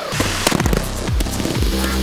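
Electronic dance music with deep bass notes and repeated falling bass sweeps.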